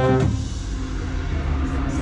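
A drum corps brass horn line, euphonium right at the microphone, holds a loud chord that cuts off about a fifth of a second in. A low rumble and a faint lingering tone are left.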